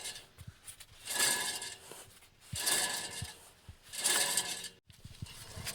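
Worn rear wheel bearing on a 2010 Toyota Prius grinding as the raised wheel turns, the rough rasp swelling and fading three times about a second and a half apart. A bad bearing with no play, only noise. The sound cuts off suddenly near the end, and softer noise with low knocks follows.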